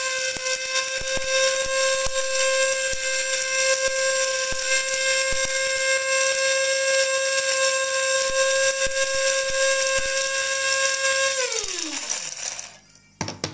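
Small electric blade spice grinder with a stainless steel cup running steadily on whole cloves, hard bits ticking against the cup as they are ground. Near the end it is switched off and its pitch falls as the motor winds down.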